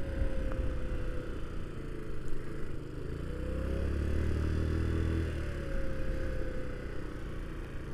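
1985 Honda Elite 150 Deluxe scooter's 150cc single-cylinder engine running while riding, the revs rising about three seconds in and easing off a couple of seconds later, over a steady rush of wind and road noise.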